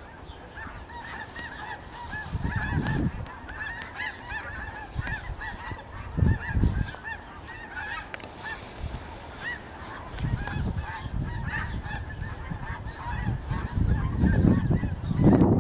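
A large flock of snow geese flying overhead, calling constantly in many short, overlapping high-pitched honks. Low rumbling noise comes and goes beneath the calls and is loudest near the end.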